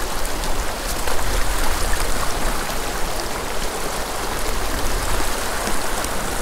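Small mountain stream running over rocks: a steady rush of flowing water.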